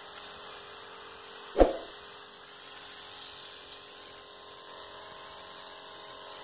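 Faint steady outdoor background noise, with a single short, low thump about one and a half seconds in.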